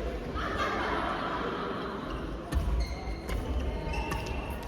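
Several sharp knocks and low thuds of play in a large, echoing hall, typical of a ball or racket being struck during a doubles match, over a low murmur of voices.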